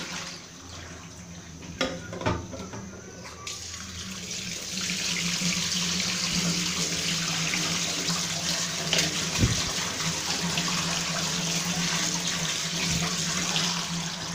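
Hot water and blanched beef liver poured from a pot into a stainless steel strainer over a steel sink, with a couple of knocks about two seconds in. From about three seconds in, a kitchen tap runs steadily onto the liver in the strainer, rinsing it, with one knock near the middle.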